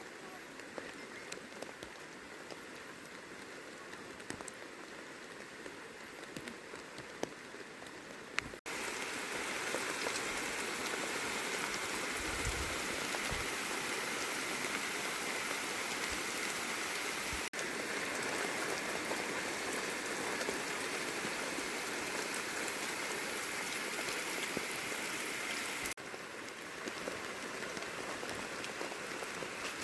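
Steady rain falling, an even hiss with scattered drop ticks. It jumps abruptly louder about a third of the way in and drops back just as abruptly near the end.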